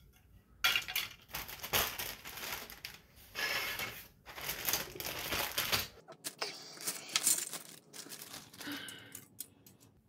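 Plastic parts sprues from an AMT bulldozer model kit clattering and clicking against each other and the mat as they are handled and laid out, with rustling between the clicks.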